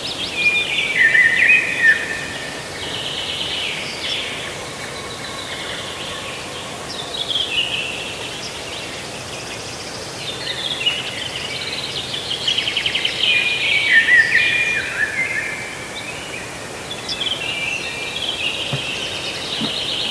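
Small songbirds chirping and twittering in high-pitched bursts with fast trills, loudest about a second in and again about two-thirds of the way through.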